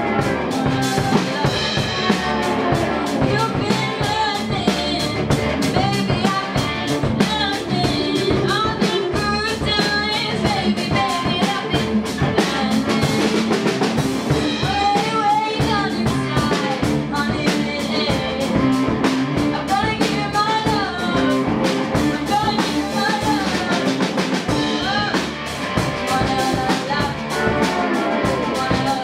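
A small live band jamming: drum kit with cymbals, electric bass, keyboard and electric guitar, with a voice singing a melody over it.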